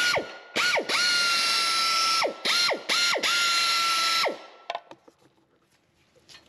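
Pneumatic air ratchet run in about five short bursts, its air motor whining up to a steady high pitch and winding down each time, the longest burst over a second, spinning out torque converter bolts. The bursts stop a little past four seconds in, followed by a faint click.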